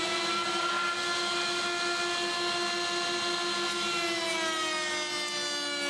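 Table-mounted router running at full speed with a steady high whine. About four seconds in, its pitch drops and holds lower as the Freud drawer-pull bit takes load, cutting a pull groove in a 24 mm rubberwood board.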